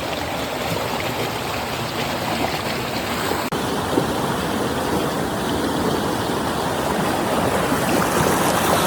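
Water flowing in a stream, a steady rushing noise. A brief dropout comes about a third of the way in, after which the rush carries on with a slightly changed texture.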